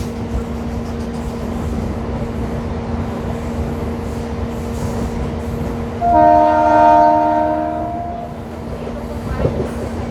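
MEMU electric train running with a steady rumble and hum. About six seconds in, its horn sounds once for about two seconds: a loud chord of several held notes.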